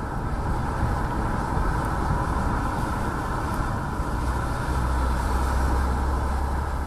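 Audi TT driving at a steady pace: a continuous mix of engine and road noise, with a deep low drone that strengthens about two-thirds of the way through.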